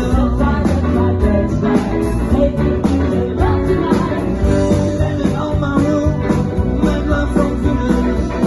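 Rock band playing a song live, with singing over guitar, bass and drums.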